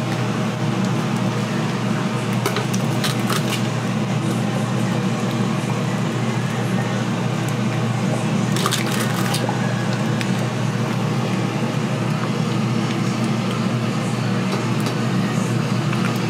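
Wet squishing food-preparation sounds of chicken feet being handled in sauce, with a few short utensil clicks, over a steady low hum.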